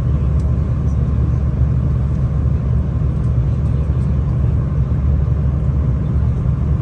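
Steady low rumble of a V/Line passenger train running along the track, heard from inside the carriage, with a few faint light ticks.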